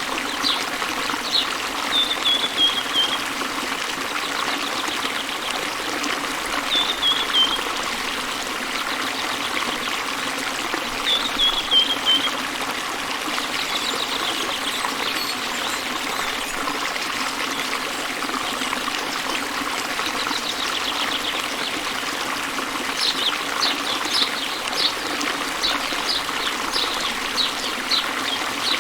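Small waterfall pouring into a river, a steady rush of running water. A bird sings a short falling phrase three times in the first half, and near the end a quick run of repeated high notes.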